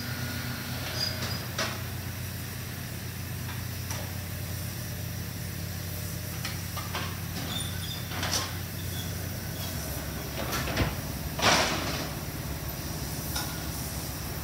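Steady low hum of a firing ceramic kiln at about 1250 °C, with several short metal scrapes and knocks as its heavy vertical-lift door is worked open and shut. The loudest knock comes about eleven and a half seconds in.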